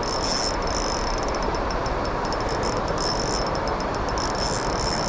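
Steady rush of flowing stream water, with a high, fast-pulsing chirr over it that comes and goes in short spells.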